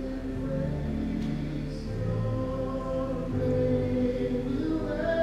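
Slow gospel worship music: held chords changing every second or so, with a low sustained bass and voices singing along.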